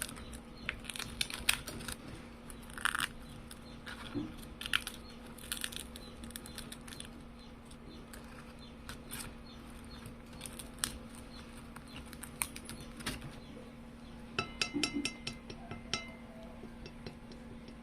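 Scattered crisp crinkling and clicking over a steady low hum, with a quick run of clicks about four seconds before the end.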